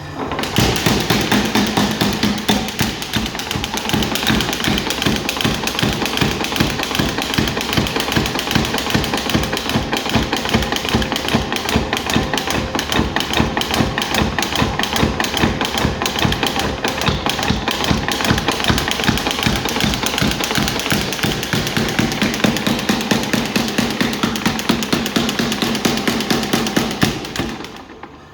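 ABNO No. 2 spring-powered mechanical power hammer running, its 40 kg ram striking rapid, evenly spaced blows. The hammering starts at once and stops shortly before the end.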